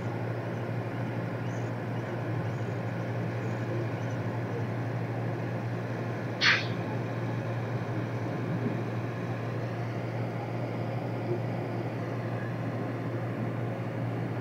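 Ferry's engines running with a steady low drone as it backs into the dock. A single brief, sharp high-pitched sound cuts through about six and a half seconds in.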